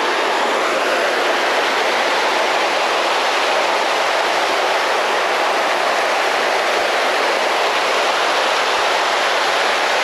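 Waterfall splashing down rocks: a steady, loud rush of falling water.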